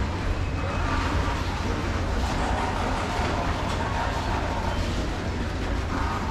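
Freight train wagons rolling slowly along the rails: a steady low rumble of steel wheels on track, with a faint squeal now and then.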